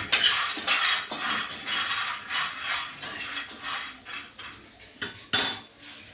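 Kitchen utensils and dishes clattering and scraping: a quick, irregular run of strokes that thins out, with one louder clatter about five seconds in.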